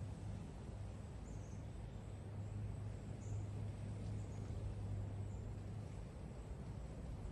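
Quiet outdoor ambience: a steady low hum under a soft background hiss, with a few faint, short, high bird chirps.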